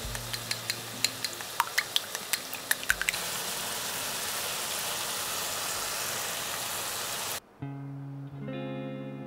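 Food sizzling in a hot frying pan, a steady hiss with a quick run of crackles and pops over the first three seconds, under quiet background music. The sizzle cuts off suddenly about seven seconds in and acoustic guitar music carries on.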